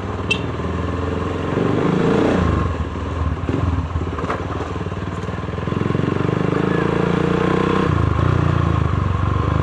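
Motorstar Xplorer 200R's single-cylinder engine pulling the motorcycle along at low speed, its note rising and easing as the throttle is worked. It runs louder from a little past halfway and dips briefly near the end.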